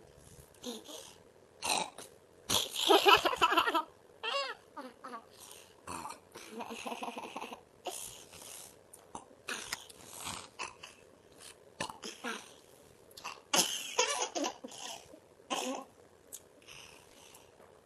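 Burps forced out one after another in a burping contest, mixed with laughing and coughing, as a string of short bursts with pauses between. The loudest bursts come about three seconds in and again near fourteen seconds.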